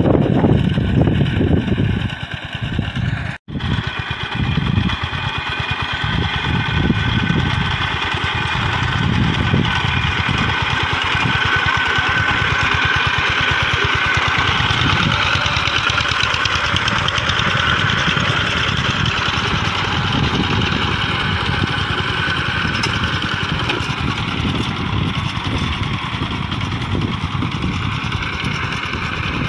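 Two-wheel walking tractor's single-cylinder diesel engine running steadily under load as it ploughs a flooded rice paddy, with a fast, even chugging. There is a brief dropout about three and a half seconds in.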